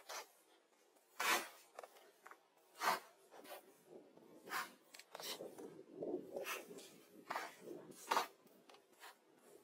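Irregular short scraping and rubbing strokes, close and dry, with sharper ones about a second in, near three seconds in and about eight seconds in.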